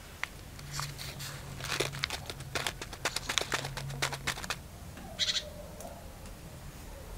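Crinkling and clicking of a small plastic zip bag of copper tubes being handled, a quick run of rustles and small clinks through the first half. A brief squeak comes about five seconds in.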